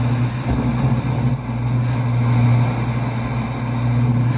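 Steady static hiss with a low hum from a Fisher 800-B tube receiver's speaker while its FM dial is turned between stations.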